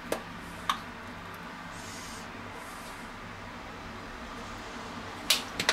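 Cooking oil being poured from a plastic bottle into a cast-iron Dutch oven: a faint soft hiss of the pour, a few light clicks and knocks of the bottle and a spatula, over a steady low hum.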